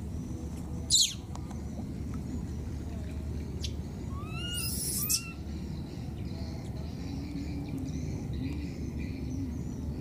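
High-pitched animal calls over a steady low outdoor rumble: a sharp, loud squeal that sweeps downward about a second in, then a short burst of shrill calls with two chirp-like rises and falls around four to five seconds in.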